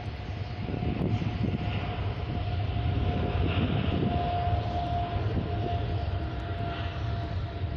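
Airbus A330-300 twin-engine jet on approach to land, its engines giving a steady low rumble with a steady whine that is strongest about halfway through.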